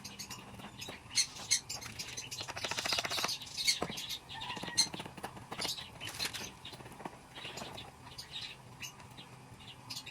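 Budgerigars chirping in short, scattered high calls, with a brief burst of rapid wing fluttering about three seconds in.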